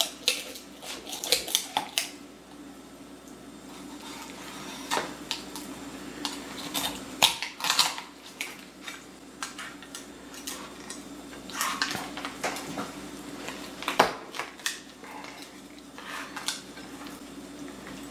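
Chef's knife cutting a whole raw chicken down either side of the backbone: scattered, irregular clicks and knocks of the blade, over a steady low hum.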